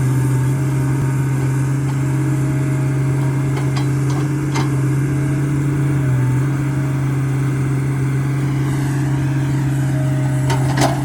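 Hitachi excavator's diesel engine running steadily under load. There are a few sharp cracks about four seconds in and again near the end, typical of wood snapping or the machine's steel parts knocking as it clears trees.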